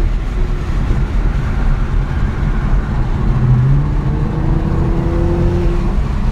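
Nissan GT-R's twin-turbo V6 and road noise heard from inside the cabin while driving, a steady low rumble with the engine note climbing a little after the middle.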